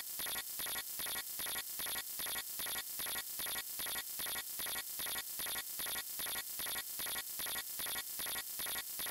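Electronic soundtrack of hissing static and buzz, pulsing on and off in a fast, even rhythm a few times a second, with faint steady high tones running through it.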